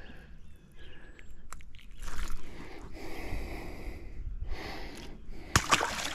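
Rustling and handling noise as a largemouth bass is unhooked and held up by the lip. Near the end comes a sharp click, then a splash as the fish is dropped back into the water: the loudest sound.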